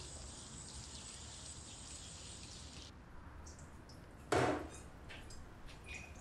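Crickets or other insects chirping in a steady high hiss that cuts off about three seconds in. Then the small clicks and knocks of someone working at a kitchen sink, with one louder short clatter about four seconds in.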